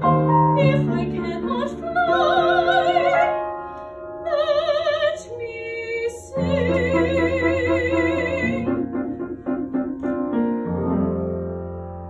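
Female soprano singing long held notes with a wide vibrato in a classical musical-theatre style over piano accompaniment. The voice stops about two thirds of the way through, and the piano plays closing chords alone, with a last chord struck near the end.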